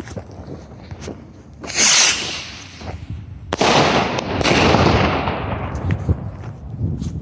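Jorge Tornado firework rockets launching: a short hissing whoosh about two seconds in, then a louder, sudden one about three and a half seconds in whose hiss fades away over the next couple of seconds, with scattered sharp pops around them.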